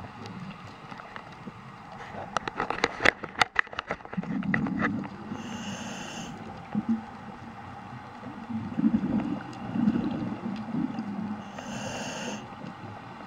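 Scuba diver breathing through a regulator underwater: two short hissing inhales, each followed by a low burble of exhaled bubbles. A burst of sharp clicks comes a couple of seconds in.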